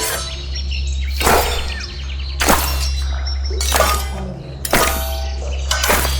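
Designed metal blade impacts: five sharp clanging strikes about a second apart, each ringing on, over a steady low hum.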